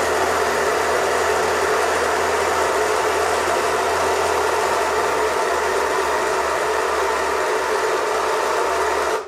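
Baratza Vario flat-burr grinder, fitted with new burrs, grinding coffee beans at espresso fineness: a loud, steady motor-and-grinding noise with a low hum that cuts off suddenly near the end.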